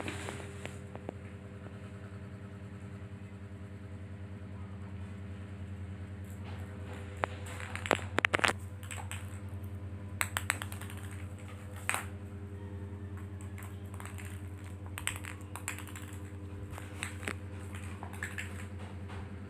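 A steady low mechanical hum with several pitches, and scattered sharp taps and clicks, a quick cluster of them about eight seconds in, from a kitten playing with a small ball on a tile floor.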